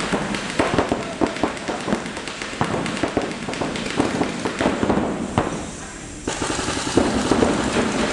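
Paintball markers firing in rapid, irregular pops that echo around a large indoor hall. The shooting eases for a moment a little past halfway, then picks up again.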